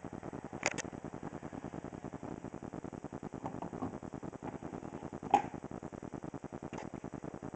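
Camera autofocus motor running as it hunts for focus on a close-up, a fast, even chatter, with a few sharp clicks, the loudest about five seconds in.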